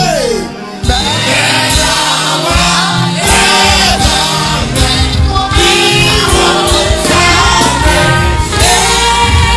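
Live gospel praise music: a male lead singer sings with backing vocalists over a band with drums and bass.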